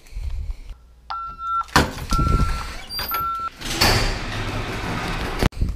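Three even electronic beeps about a second apart. Around them are loud door and handling noises as someone walks through from the house.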